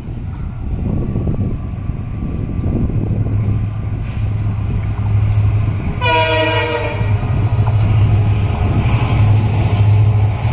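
An approaching Indian Railways WDG4 diesel locomotive, its 16-cylinder EMD two-stroke engine running with a deep steady drone that grows louder as it nears. About halfway through, the locomotive's horn sounds one blast about a second long.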